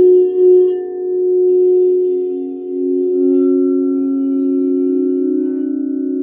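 Crystal singing bowls ringing in several steady, overlapping tones as a wand is circled around a rim. The sound pulses in a wobble for the first second, then a lower tone swells in and the blend holds steady.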